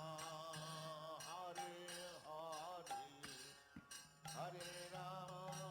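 Soft background devotional music: a chanted melody over a steady drone.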